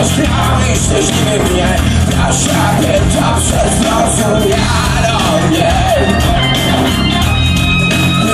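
Live rock band playing loudly, heard from the crowd: electric guitars, bass and drums with cymbals, and a male singer singing and shouting over them, in a large hall's echo.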